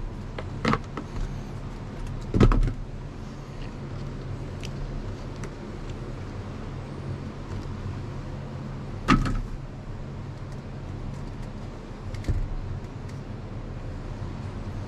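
A few sharp knocks and clunks as a cab air filter and its cover are handled and fitted in a tractor cab, the loudest two about two seconds in and about nine seconds in, over a steady low hum.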